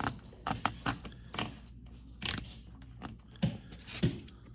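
Irregular clicks, taps and short scrapes from a sharpened probe being poked through new carpet and its thick Boom Mat sound-deadening layer, feeling for the seat-belt bolt holes in the truck's floor pan.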